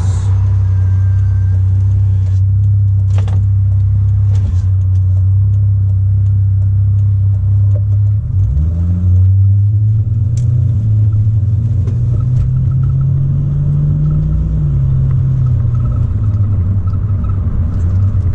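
Mk3 Toyota Supra's engine heard from inside the cabin, a steady low drone at first, then a brief dip about halfway through followed by a note that rises as the car pulls away and accelerates, falling back a few seconds before the end.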